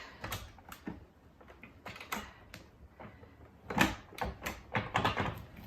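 Clicks and knocks of a Sirena water-filter vacuum's parts being released and pulled apart by hand: an uneven series, with a busier cluster about four to five seconds in.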